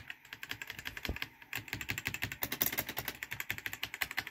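Mechanical keyboard switches being typed on rapidly, a fast run of clicking key presses at about ten a second with a brief pause about a second and a half in.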